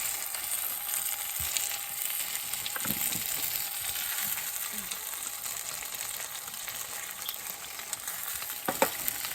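Gyoza sizzling steadily in a frying pan over a campfire, the dumplings starting to scorch. A brief clack near the end.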